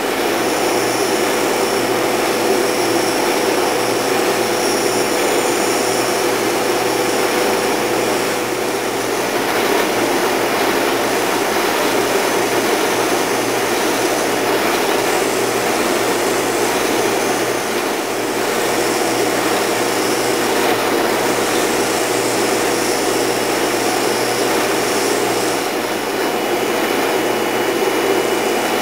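Oscillating spindle sander running with its dust-collection hookup: a steady motor hum and rush of air while a cherry drawer pull is pressed against the spinning sanding drum to shape it.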